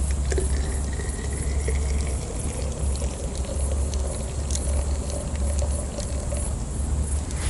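Water heating toward the boil for tea: a steady low rumble with faint wavering tones above it and faint high ticking throughout.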